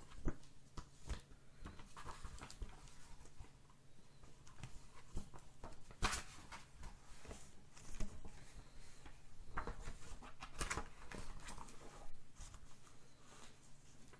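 Handling noises: scattered rustles, taps and clicks of things being moved about by hand, with a few louder clicks about six and about eleven seconds in.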